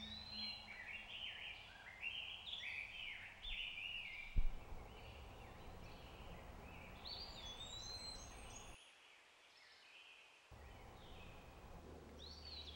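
Birds singing outdoors, many short rising and falling chirps over a faint background hiss, busiest in the first few seconds. A single low thump about four seconds in, and the background drops out to near silence for about two seconds before returning with another call.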